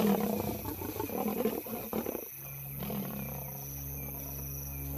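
Lions growling and snarling in rough, irregular bouts, with a steady low hum taking over a little past two seconds in.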